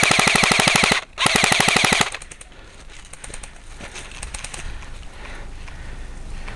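Airsoft rifle firing on full auto close by: two long bursts of rapid, evenly spaced shots, split by a short pause about a second in. Fainter rapid shots follow a couple of seconds later.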